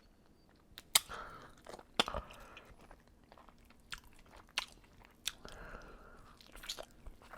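Close-miked mouth sounds of a person eating saucy, vinegary chicken wings: wet lip smacking and chewing, with sharp smacks about one and two seconds in and several more spaced out after.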